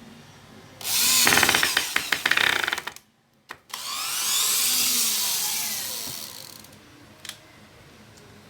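12V cordless drill/driver being test-run twice. The first run lasts about two seconds with a rapid clicking rattle and stops abruptly. The second runs about three seconds, its whine falling in pitch as the motor slows down.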